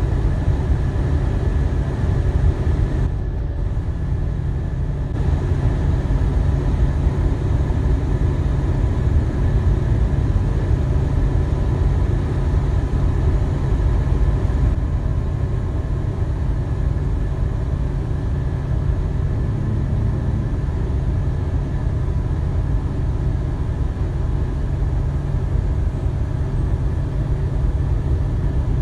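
Steady low road and engine rumble heard inside a vehicle's cab moving at highway speed.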